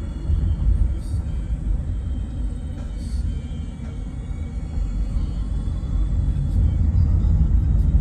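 Low rumble of a car driving slowly on a paved road, growing louder in the last few seconds.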